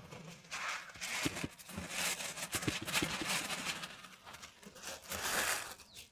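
Granulated sugar pouring from a plastic packet into a plastic tub, the bag crinkling as it is shaken out, in several bursts of hiss.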